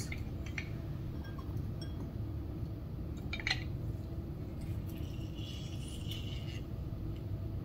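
Quiet kitchen handling of a handheld lemon squeezer: a couple of faint light clinks, and a soft hiss about five and a half seconds in as it is pressed over the onions, over a steady low room hum.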